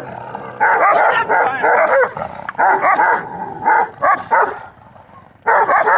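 Bully dog barking and yipping in rapid runs of short, high calls, falling quiet briefly before another burst near the end.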